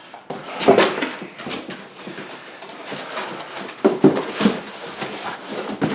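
Cardboard packaging scraping, rustling and bumping as a boxed radio is lifted out of its outer carton and set down, with a few sharp knocks.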